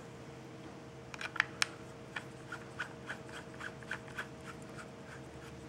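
A few sharp clicks, then a run of light, evenly spaced ticks, about three or four a second, as a glass atomizer tank is twisted onto the threaded connector of a SMOK G-Priv 220W box mod.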